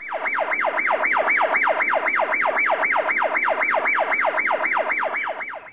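Siren-like wailing tone whose pitch drops quickly and repeats about three or four times a second. It is loud and stops shortly before the end.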